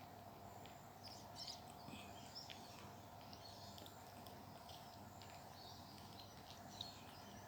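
Near silence, with faint high chirps scattered throughout and a few soft ticks.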